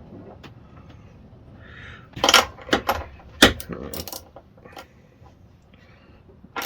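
Metal hand tools clinking and tapping on a small engine: a run of sharp, irregular clinks over a few seconds, in the middle of the stretch, as a spark plug socket is fitted onto a new spark plug.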